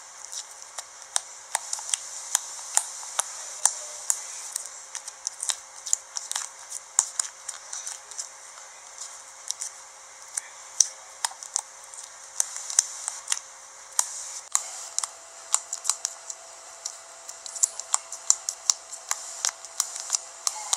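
Slime being squished and stretched by hand, giving off irregular crackling clicks and pops several times a second.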